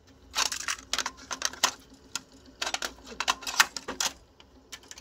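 Quick plastic clicks and rattles as a cassette is handled in the open eject door of a Curtis Mathes HK510 stereo cassette deck and the door is pushed shut. The clicks come in clusters, with a single sharper click near the end.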